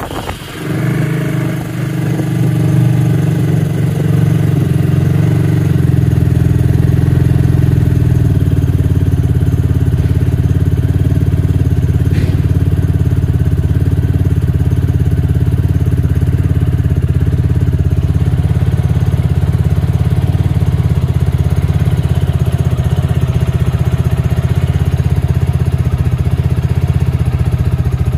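Baodiao BD250-5 motorcycle engine idling steadily while warming up. It comes up to its idle over the first couple of seconds, and its note settles slightly about seven seconds in.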